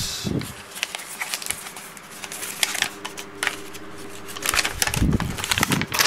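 A sheet of paper rustling and crackling as it is handled and put aside, in irregular small crinkles. There are a couple of soft, muffled handling thuds, one just after the start and one around five seconds in.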